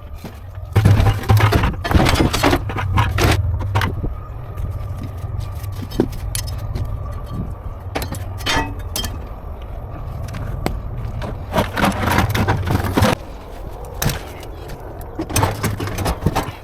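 Bursts of metal clattering and scraping over a steady low hum.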